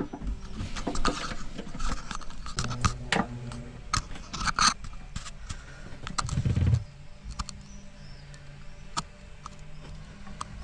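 Scattered metal clicks and scrapes as a hand tap held in a tap wrench is set and turned in a drilled hole in an aluminium hull, cutting the thread for an M8 bolt. A dull thump a little past halfway.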